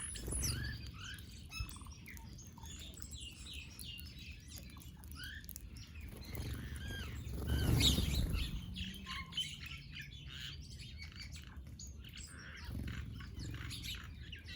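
Small birds chirping and twittering, many short overlapping calls, with a brief louder rush of noise about eight seconds in.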